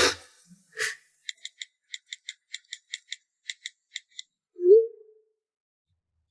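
An uneven run of short, high clicks, about five a second for some three seconds, followed by a brief low sound that rises in pitch.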